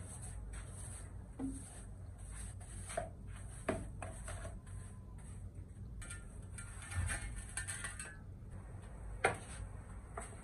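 A long-handled broom working over a concrete floor: a few light knocks of the wooden handle and head, and a rough scraping stretch about seven seconds in.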